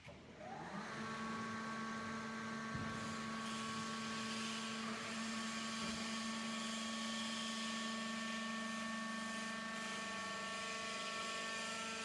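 Electric motor and hydraulic pump of a vertical baler's power pack starting up with a short rising whine under a second in, then running with a steady hum.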